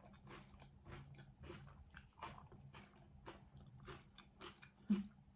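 Close-miked chewing of crunchy food, a mouthful of grinder sandwich with its chopped salad filling: irregular crunches a few times a second, with a louder crunch about five seconds in.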